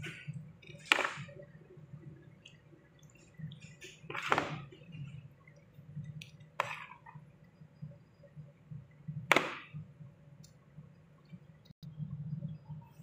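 A metal spoon scraping and clinking against a ceramic baking dish while spreading sauce-coated penne: four short strokes a few seconds apart, over a low steady hum.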